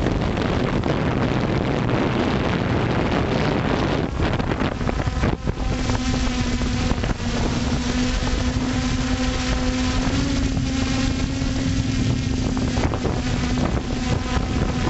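FPV drone's electric motors and propellers buzzing, heard through its onboard camera microphone with heavy wind noise over it. About six seconds in, a steady motor hum comes through clearly.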